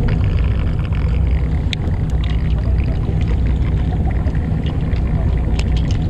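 Charter fishing boat's engine running steadily, a continuous low rumble, with a couple of faint light clicks.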